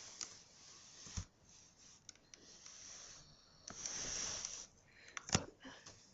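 A person breathing heavily: one long, noisy breath nearly four seconds in, with small clicks around it and a sharp click about five seconds in.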